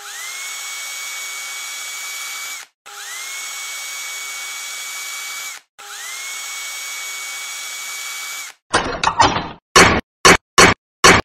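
A small motor whirring, spinning up quickly in pitch and then holding steady, three times in a row, each run lasting close to three seconds. Then a short rattle and four sharp clanks about half a second apart.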